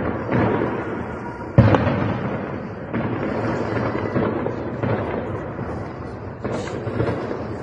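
Gunfire in a city at night: a series of loud bangs, the loudest about a second and a half in, each trailing off in a long echoing rumble.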